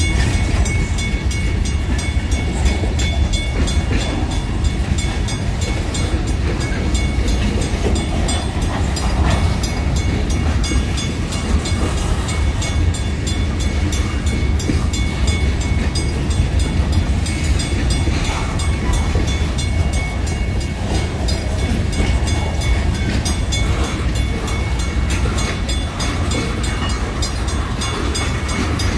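Freight train cars rolling past on the rails with a steady, heavy rumble, over a grade-crossing bell ringing rapidly and evenly.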